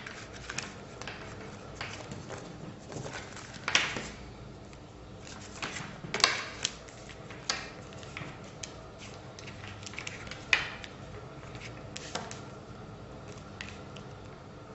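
Scrapbook pages of decorated cardstock being handled and laid out: scattered light rustles and taps, the sharpest about 4, 6 and 10.5 seconds in.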